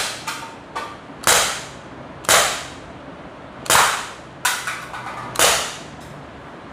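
Gamo C-15 blowback CO2 air pistol firing steel BBs: five sharp shots at uneven intervals of one to one and a half seconds, with a couple of fainter clicks between them.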